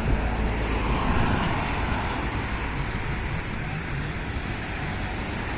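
Road traffic running past: steady engine and tyre noise, swelling briefly about a second in.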